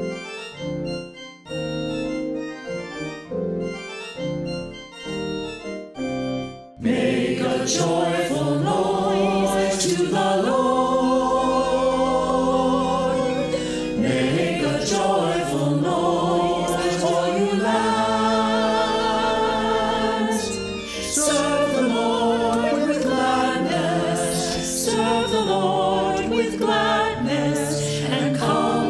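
Sacred choral anthem: a short keyboard introduction of separate notes, then about seven seconds in a choir comes in singing in parts with accompaniment, voices wavering with vibrato.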